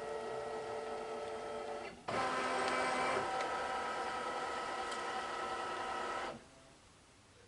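Brother Luminaire's embroidery unit whirring as its motors drive the large hoop across the machine bed while the machine scans the hooped fabric. A steady motor whine pauses briefly about two seconds in, returns louder with several tones, and stops suddenly about six seconds in.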